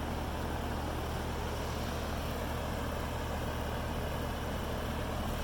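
Carrier HVAC system running steadily after startup: a constant low hum with a rush of air noise over it.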